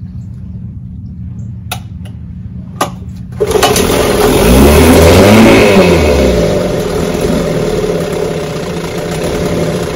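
Vintage two-stroke outboard motor starts about three and a half seconds in, revs up and back down, then keeps running steadily. It is kept running by hand-pumping the fuel primer bulb, because a bad fuel pump is not refilling the carburetor.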